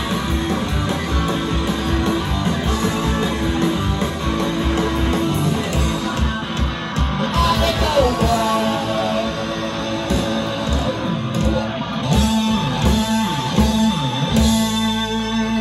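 Live rock band playing loudly: electric guitars and drums.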